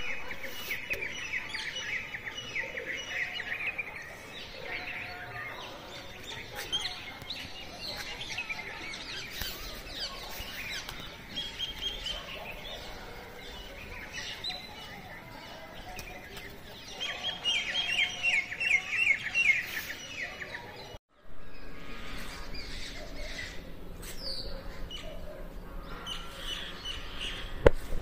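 Birds chirping and calling, with quick runs of chirps near the start and again about two-thirds of the way in. The sound drops out for a moment a little later.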